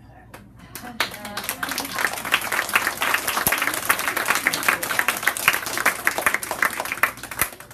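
Small audience applauding with hand claps. It starts about a second in, runs steadily, and dies away near the end.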